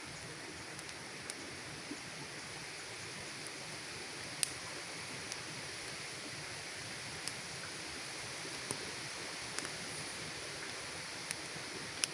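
Campfire burning: a steady hiss with irregular sharp crackles and pops from the burning wood, the loudest about four seconds in and another just before the end.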